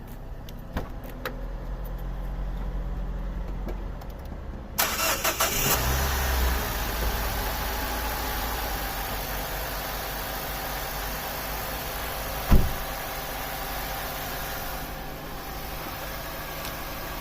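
Car engine started for a jump start: a brief cranking about five seconds in, then the engine catches and idles steadily. A single sharp knock about twelve and a half seconds in.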